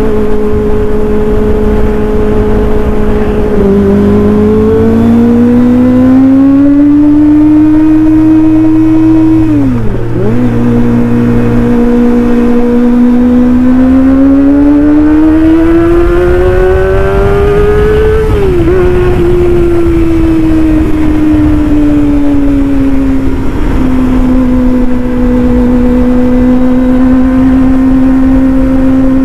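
Kawasaki ZX-25R's 250 cc inline-four engine through an aftermarket racing exhaust, ridden on the road. The revs climb steadily and dip sharply at a gear change about ten seconds in. They climb again and dip at another shift past halfway, then ease down to a steady cruise.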